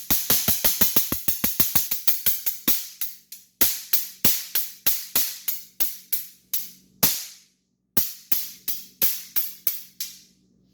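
Hand Blasters trick noise makers going off in a long run of sharp, loud pops, fast at first and then slowing to two or three a second, with a short break near the end.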